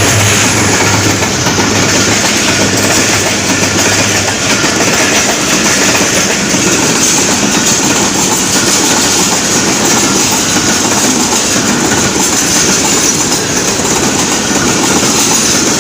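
Passenger coaches of a broad-gauge train rolling past close by: a steady, loud rush of wheels on rail with a clickety-clack over the rail joints. A low hum dies away in the first second or so.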